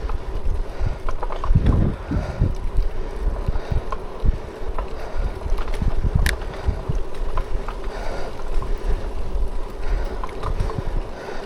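Wind buffeting the microphone while riding, over a gusty low rumble. A faint steady hum runs underneath, with scattered small knocks and rattles.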